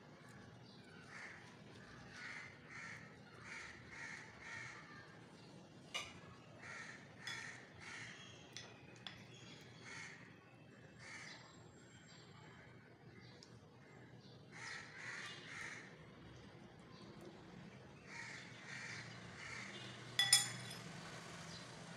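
Crows cawing in repeated series of short harsh calls, with a sharp clink about twenty seconds in.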